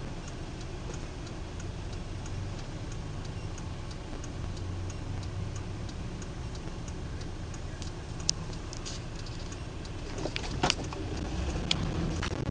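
Car cabin sound while driving: steady low engine and road rumble, with a light, quick regular ticking of about two to three clicks a second. A few sharper clicks come near the end.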